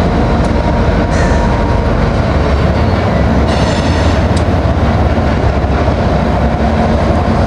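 BNSF diesel freight locomotives crossing a steel truss bridge with a loud, steady rumble. A few short high-pitched squeaks cut through, and a brief high buzz comes about halfway through.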